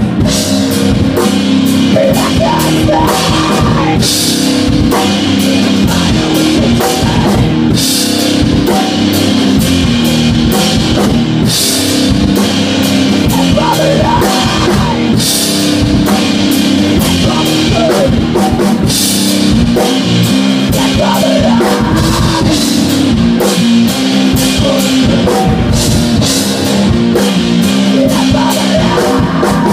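A band playing live rock in a rehearsal room: a drum kit and an electric guitar, with a steady driving beat. A cymbal crash comes roughly every four seconds.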